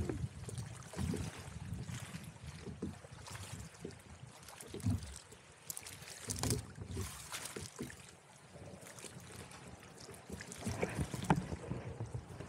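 Choppy water lapping and slapping against a kayak's hull in irregular splashes, with wind on the microphone.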